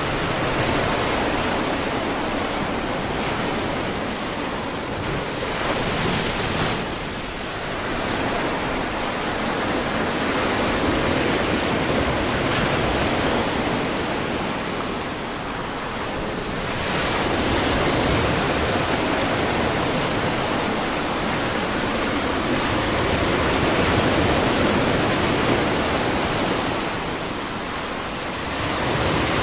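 Sea surf breaking and washing through shallow water: a steady hiss that swells and eases every few seconds.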